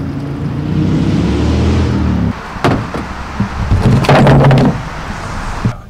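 A steady low engine hum breaks off about two seconds in. A sharp knock follows, then clunks and rattles as a red plastic gas can is handled, with the loudest clatter about four seconds in.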